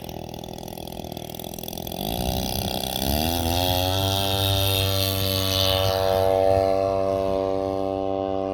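40cc two-stroke boxer engine of an RC plane running, throttled up about two seconds in: the pitch rises and then holds steady at high revs, louder than before.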